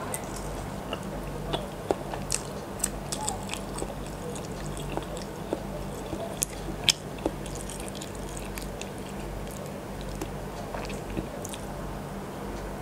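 Close-miked biting and chewing of a cooked incubated chicken egg, with sharp wet mouth clicks scattered throughout, the loudest about seven seconds in. A steady low hum runs underneath.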